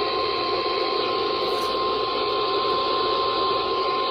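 NOAA Weather Radio 1050 Hz warning alarm tone: one steady high tone over the hiss of radio static, the alert that announces a warning broadcast.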